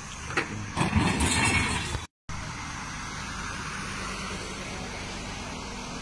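Road noise: a vehicle going past loudly in the first two seconds, then, after a cut, a steady low traffic hum.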